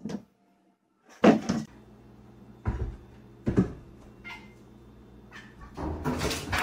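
Domestic cat meowing, a few short separate meows spaced a second or two apart, mixed with a few thumps.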